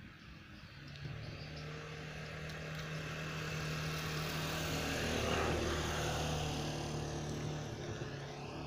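Engine of a passing vehicle, with a steady low hum that grows louder to a peak a little past halfway and then fades.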